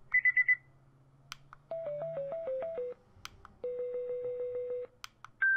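Tsumbay Bluetooth alarm clock speaker playing its alarm tones in turn: a quick burst of four high beeps, a short tune of simple electronic notes, a steady low electronic tone for about a second, then a higher stepping tune beginning near the end. Sharp clicks sound between the tones.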